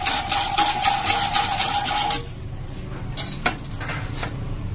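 A wire whisk beating quickly in an aluminium saucepan, rattling against the metal at about four to five strokes a second as evaporated milk is whisked into a butter-flour roux for a white sauce. The whisking stops about two seconds in, leaving a few light knocks.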